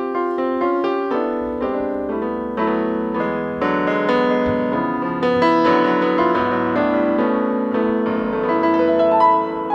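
Digital piano playing a slow instrumental introduction in sustained chords and melody notes, a new note or chord every half second or so.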